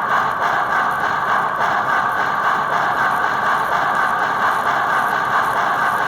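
1955 American Flyer Atlantic S-gauge model steam locomotive running, its sound board's steam chuffs coming fast enough to run together into a near-steady hiss from the small speaker. A little buzz comes from the gearbox, which needs greasing.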